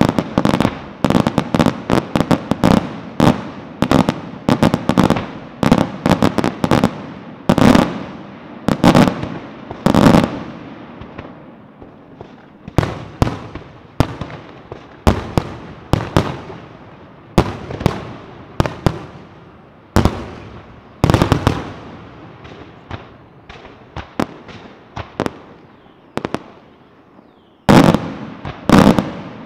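Aerial fireworks display: a rapid, irregular barrage of shell bursts and reports, several bangs a second, each followed by a short echoing decay. The bangs thin out a little past the middle, then a loud cluster near the end.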